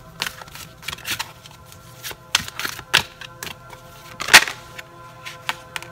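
Tarot cards being drawn from the deck and laid on a table: irregular flicks and taps, with the loudest card slap about four and a half seconds in.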